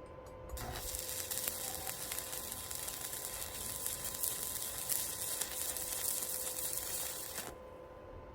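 Electric arc welder striking an arc and laying a weld, a steady crackling sizzle for about seven seconds that starts suddenly just after the start and cuts off near the end as the arc is broken.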